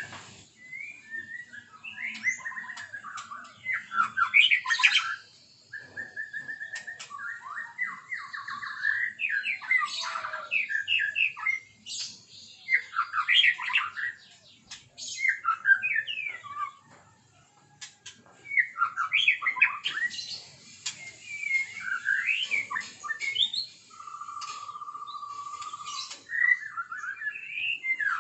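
White-rumped shama (murai batu) singing a varied song of quick whistled phrases and chattering notes, with a short pause past the middle and a long, level whistle near the end.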